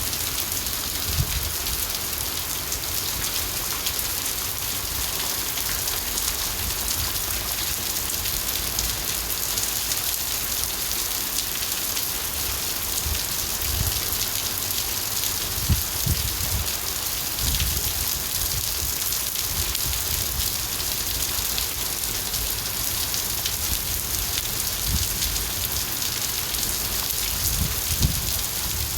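Steady rain falling, an even hiss of drops on surfaces, with a few brief low thumps now and then.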